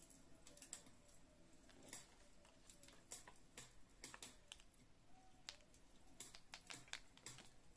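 Faint scattered clicks and taps from a Posca paint marker and its cap being handled.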